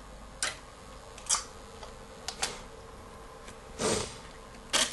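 A few scattered light clicks and taps, with a short rustling scrape just before the end, as the freshly soldered silver chain is handled and lifted off the soldering block. A faint steady hum runs underneath.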